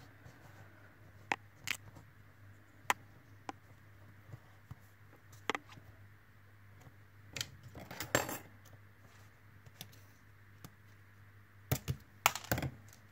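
Light clicks and taps of thin craft wire being bent and worked into holes in a small wooden piece, with small metal hand tools (pliers, scissors) handled on a cutting mat. Scattered single ticks, a busier clatter about eight seconds in, and a few sharper clicks near the end.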